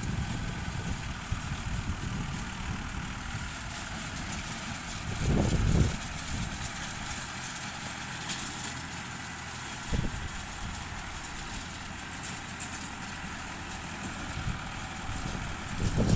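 Tractor engine running steadily while driving a round straw baler. A brief louder low rumble comes about five seconds in, and a single short knock comes at about ten seconds.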